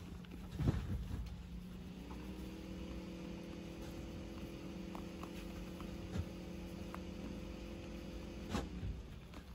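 A steady machine hum with several pitches comes in about two seconds in, holds level, and winds down near the end, over a lower constant hum. A sharp knock about a second in and a few soft clicks come from a goat feeding at a hay bucket.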